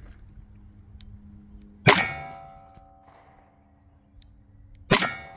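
Two shots from a 2-inch revolver firing .38 Special +P Federal 158-grain semi-wadcutter hollow points, about three seconds apart. Each sharp crack is followed by a metallic ring that fades over about a second.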